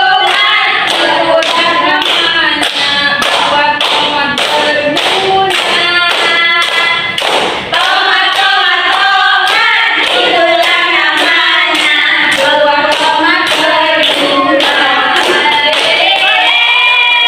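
A group of women singing an Indonesian children's song together, clapping their hands in a steady rhythm as they sing.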